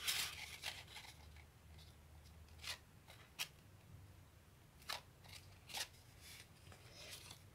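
Faint handling of a plastic pattern ruler and pencil on paper: a brief rustle at the start, then four short, sharp clicks spread over the next few seconds.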